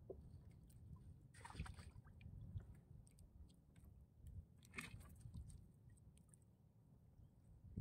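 Near silence: a faint low rumble of wind and water around a small canoe, with two brief soft rustles of bait being handled on a wooden board, about a second and a half in and again near five seconds in, and a few faint clicks.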